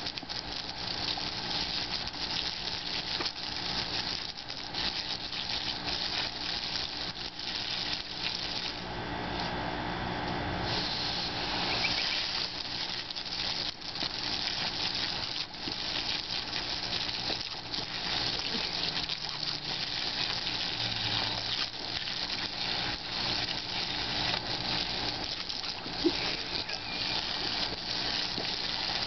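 Water from a garden hose spraying and spattering as a chow chow bites and snaps at the stream: a steady hissing splash broken by many small irregular splashes.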